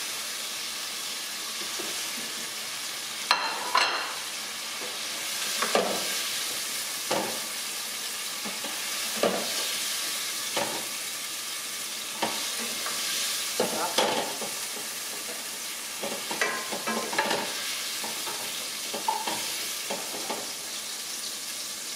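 Shrimp frying in a hot pan with a steady sizzle. A utensil knocks and scrapes against the pan about a dozen times as the shrimp are lifted out.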